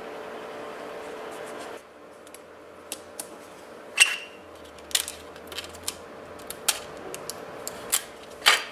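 Scattered sharp taps and clicks of hands handling a sheet of glass with a paper template on it; one tap, about four seconds in, rings briefly. A steady hum stops abruptly a little under two seconds in.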